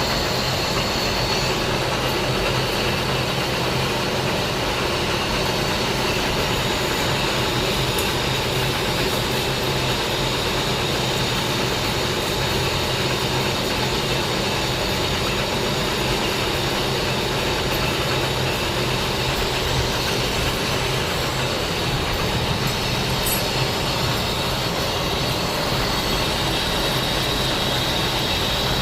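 Lathe machine running steadily, a continuous mechanical hum with a high whine over it.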